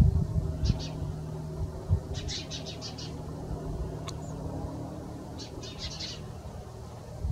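A bird calling in three bursts of rapid, high chirping notes, a couple of seconds apart, over a low outdoor rumble.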